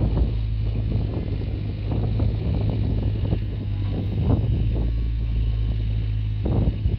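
Takeuchi TB016 mini excavator's diesel engine running steadily while its hydraulic boom and arm extend and the bucket lowers, with wind buffeting the microphone.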